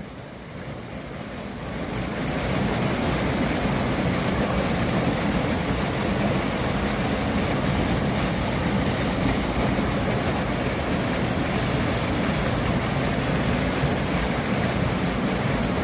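Steady rushing of a mountain waterfall, which builds over the first two seconds and then holds even.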